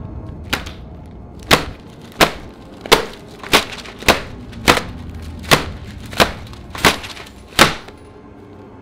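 A series of about eleven sharp knocks on wood, roughly three every two seconds. The first is faint, and they stop shortly before the end.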